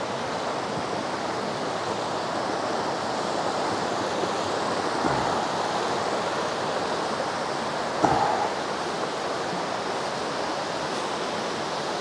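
Steady rush of a stream in full flow tumbling over rocks, with a waterfall ahead, after heavy rain. A brief knock about eight seconds in.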